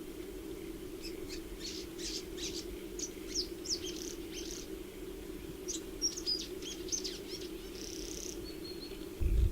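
Welcome swallow twittering: a long run of quick, high chirps and short twitters, over a steady low hum, with a low rumble coming in at the very end.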